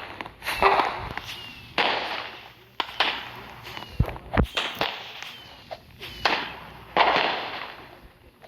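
An irregular run of sharp cracks, each followed by a short hissing burst that fades, roughly one a second, with two low thumps about four seconds in.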